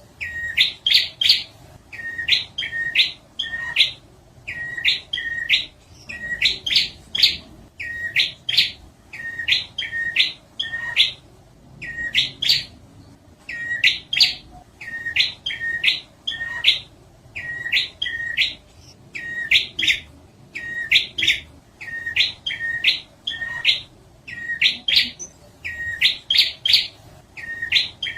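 Prenjak (prinia) lure call: a rapid, scolding series of short, sharp chip notes in clusters of two to four, repeated about every second and a half without a break.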